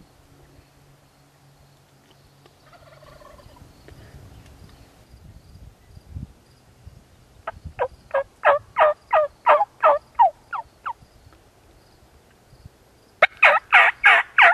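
Hen-turkey yelping on a hunter's turkey call: a run of about fourteen short notes, each dropping in pitch, at about four a second, then after a pause a louder, faster run of about seven near the end.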